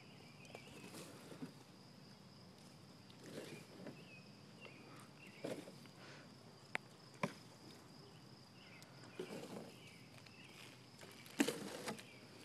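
Faint outdoor background: a steady high-pitched hum with scattered soft rustles and two sharp clicks about halfway through.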